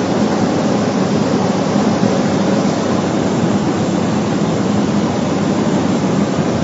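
Cabin noise inside a Cessna 208B Grand Caravan in flight: the single PT6A turboprop engine and propeller running steadily under rushing airflow, with a steady low hum.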